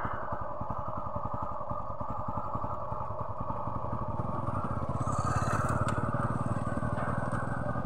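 An engine running steadily at idle, its firing pulses even and rapid, with a short hiss and a click about five to six seconds in.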